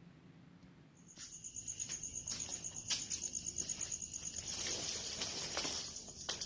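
A steady, high-pitched insect trill that starts about a second in, of the kind made by a cricket, with scattered clicks.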